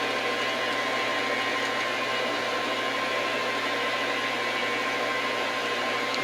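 Metal lathe running steadily while turning down the end of a steel bench vise handle, a constant machine noise with a thin, steady whine in it.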